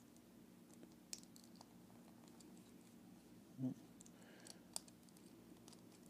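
Faint clicks and small taps of hard plastic as a hand part is worked onto the wrist peg of a Bandai D-Arts Bass action figure, over a low steady room hum. There is a brief, slightly louder low sound a little past halfway.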